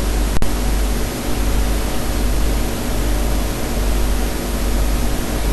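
Steady hiss with a faint low hum underneath, with nothing else in it.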